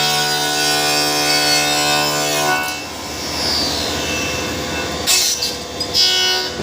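Vertical machining center (VMC) running with a steady, pitched machine whine that stops about two and a half seconds in. Irregular mechanical rattling follows, with two short, high hiss-like bursts near the end.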